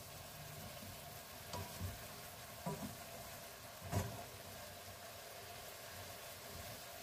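Bean sprouts and vegetables sizzling faintly in a frying pan as they are stirred with a wooden spatula, with a few knocks of the spatula against the pan, the loudest about four seconds in.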